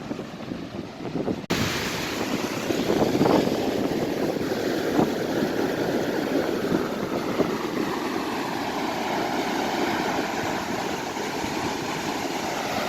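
Ocean surf washing on a beach, mixed with wind rushing on the microphone, as a steady noise. The sound changes abruptly about a second and a half in, where the recording cuts.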